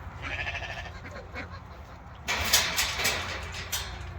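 A barnyard fowl calling briefly near the start. About two seconds in comes a louder, noisy sound lasting about a second and a half.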